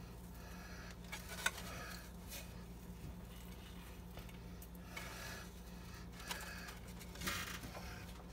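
Faint rustling of crushed crackers being spread by hand over a casserole in a baking dish, with a single light click about a second and a half in. A steady low hum lies underneath.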